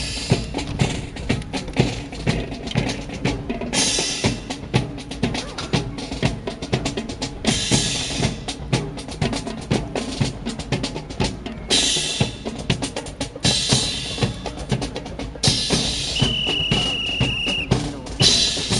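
Marching drum cadence: snare and bass drum beat out a fast, steady rhythm, broken every few seconds by long hissing crashes.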